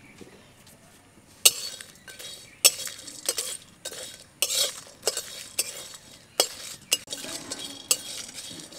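A flat metal spatula scraping and clinking around a dry metal kadai as it stirs whole spices being dry-roasted on low heat. There are irregular sharp scrapes and knocks from about a second and a half in.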